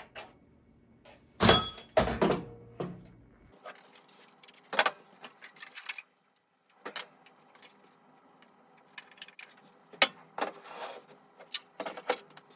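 Hands handling fire alarm devices and parts: scattered knocks, clicks and rustling as pieces are picked up, turned over and set down. The loudest knocks come about a second and a half in and about ten seconds in.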